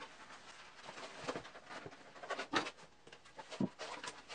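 Bicycle inner tube being stretched by hand over a plywood bandsaw wheel: short, irregular rubbing and scraping of rubber on wood, the loudest about two and a half and three and a half seconds in.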